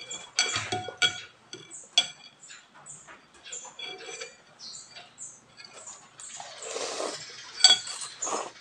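Metal fork and spoon clinking against a glass bowl of noodle soup, a few sharp ringing clinks, between small wet mouth clicks of eating. About seven seconds in, noodles are slurped up in a longer rushing suck.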